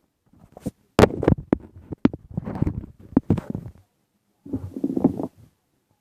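Close-up handling of blind bag packaging and small plastic toys: irregular rustling and crinkling with several sharp clicks, a pause, then another burst of rustling near the end.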